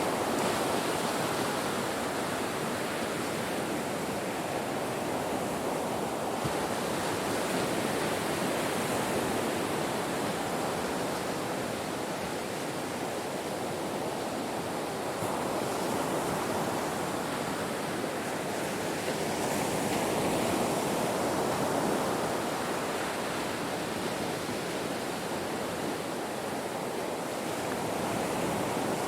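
Ocean surf breaking on a shore: a continuous rushing wash that slowly swells and eases, loudest about twenty seconds in.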